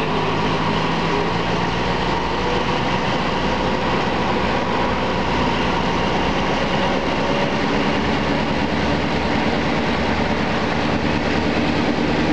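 Passenger train running along the track, heard from a carriage window: a steady rumble of the wheels on the rails, with a faint steady drone underneath.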